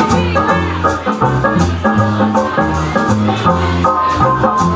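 Live swing jazz band playing an instrumental passage, with double bass and strummed banjolele. A walking bass line runs under a steady beat of about two strokes a second, and a held melody note comes in near the end.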